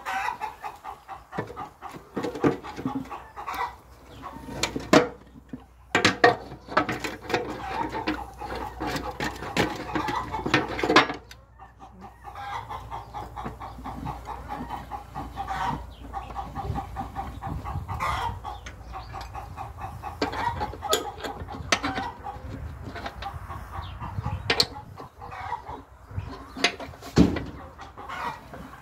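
Hens clucking on and off, with a brief lull about eleven seconds in, and several sharp metal knocks from the parts of a screw wax press being fitted together.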